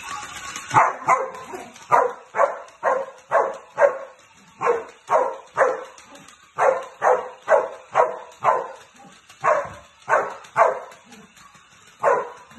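Samoyed barking in quick runs of short barks, about two a second, with brief pauses between runs.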